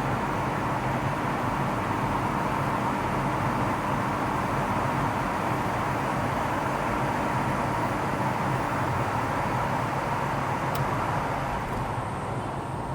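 Steady running noise of a moving road vehicle: engine hum and tyre and road noise, easing slightly near the end.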